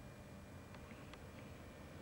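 Near silence: the faint steady hiss and low rumble of a Video 8 camcorder's own sound track, with a few faint ticks about a second in.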